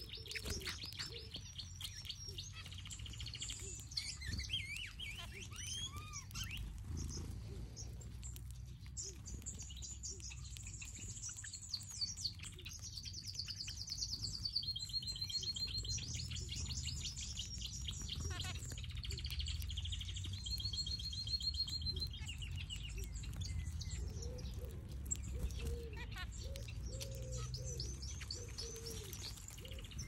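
A mixed flock of aviary finches, zebra finches among them, chirping and calling together in rapid runs of high, nasal notes. Low dove coos join in during the last few seconds.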